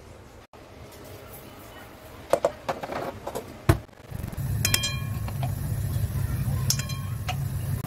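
Kitchen utensils clinking and knocking, then a steady low hum with two ringing metallic clinks, a utensil striking an iron wok.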